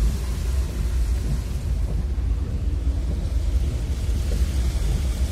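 Steady low rumble and hiss inside a car's cabin as it drives along a rain-soaked road.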